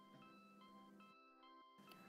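Near silence, with very faint background music of held notes that change a couple of times.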